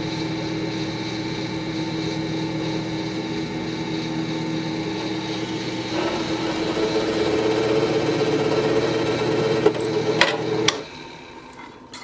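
Benchtop drill press running steadily as its bit drills a pin hole into a wooden pick handle. About six seconds in the sound changes and grows a little louder, and the motor switches off a little over a second before the end.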